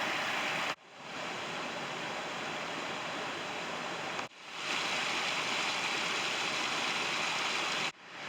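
Steady rush of running water, an even noise with no distinct events. It drops out suddenly three times and fades back in.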